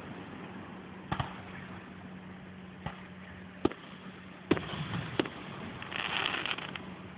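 Aerial firework shells bursting at a distance: about six sharp bangs at uneven spacing, the loudest in the middle, followed near the end by a brief crackle.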